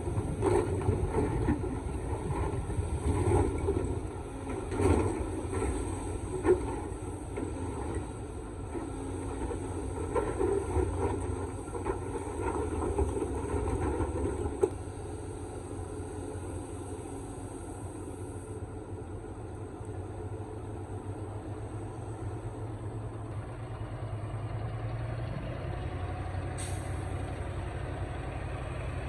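Excavator's diesel engine running, with repeated knocks and clanks of the machine working through the first half. The engine then runs more steadily and quietly, with a brief hiss near the end.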